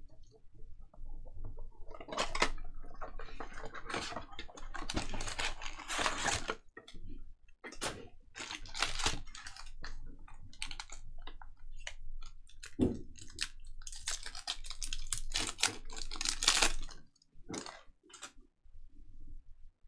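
Foil trading-card pack wrappers crinkling and tearing as packs are opened by hand, in a run of short, irregular rustling bursts. Near the end the crinkling gives way to quieter handling of the cards.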